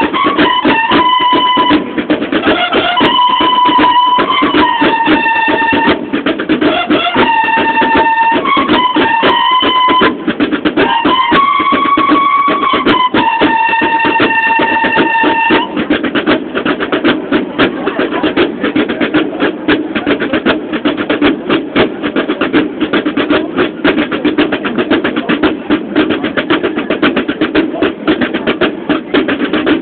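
Drum and bugle band: bugles play a melody of held notes over snare drums for about the first fifteen seconds, then the drums carry on alone with a fast cadence.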